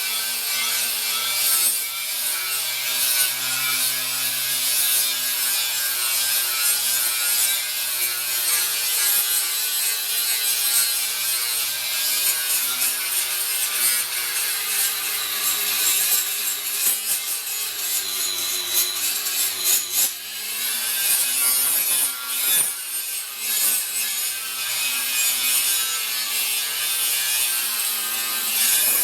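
Power grinder grinding the steel of a fireplace door and its weld seams: a steady, harsh rasp over the motor's hum, whose pitch dips and recovers briefly about two-thirds of the way through as the tool is loaded.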